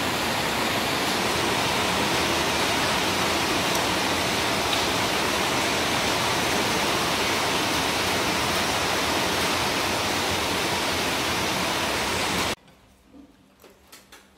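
Steady, loud rushing hiss that cuts off suddenly near the end, followed by a few faint clicks.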